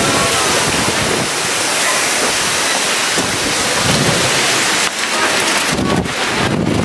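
Wind buffeting the microphone: a loud, steady rushing that turns gustier, with short buffets, in the last two seconds.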